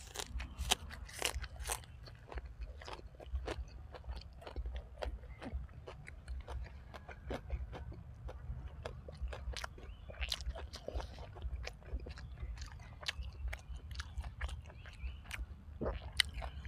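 Close-up mouth sounds of a person chewing and biting food: irregular sharp wet clicks and crunches, several a second, over a steady low hum.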